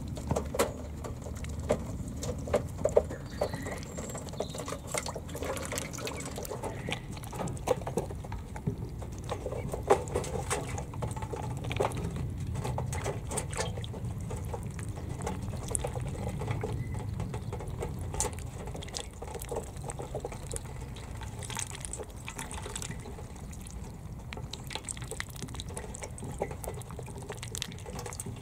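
Indian Runner ducklings splashing and dabbling their bills in a shallow tray of water: many small, irregular splashes and patters.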